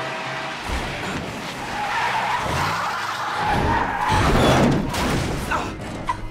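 A van skidding out of control: a long tyre screech over rushing noise that is loudest about four seconds in, then a few sharp metal impacts near the end as the van is stopped and its side dented.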